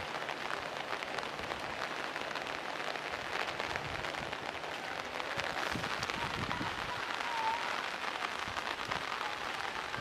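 Heavy rain falling on open water and vegetation: a dense, steady hiss of drops striking a flooded pond's surface.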